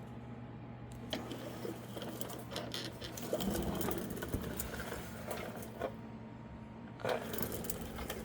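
GMC engine idling with a steady low hum and a fast, even mechanical ticking. A few louder clicks and knocks stand out, about a second in, around six seconds in, and near the end.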